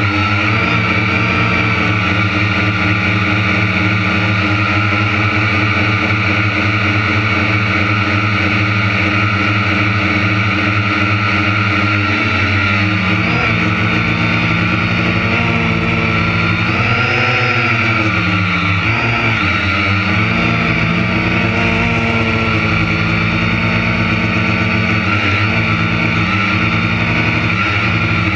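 Large engine of harvest machinery running steadily under load, its pitch sagging and recovering several times in the second half as the load changes.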